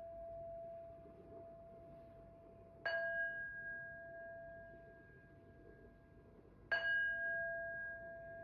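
Tibetan singing bowl struck twice, a few seconds apart, each strike ringing on in a long, slowly fading tone.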